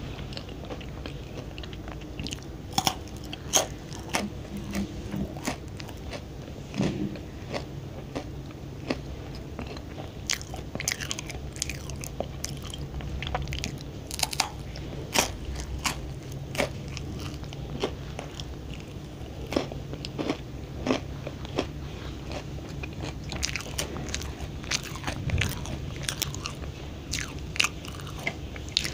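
Close-miked eating of a crisp chocolate waffle biscuit: irregular sharp crunches as it is bitten and chewed.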